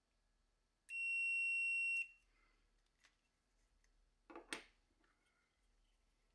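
A digital multimeter's continuity beeper sounds one steady, high-pitched beep lasting about a second, the sign that the automotive relay's switch contacts have closed under the 9-volt battery. A couple of faint clicks follow about four seconds in as the relay and test leads are handled.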